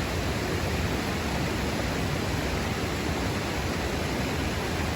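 Steady rushing of a waterfall and its water, an even hiss with no change throughout.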